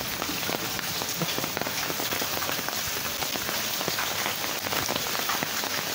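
Steady cyclone rain falling, with many sharp drops pattering on hard surfaces close by.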